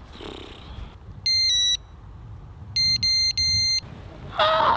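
Electronic carp-style bite alarm on a river rod beeping: two quick beeps about a second in, then three more a second later, as the line is pulled. It signals a take, and a fish is hooked moments later.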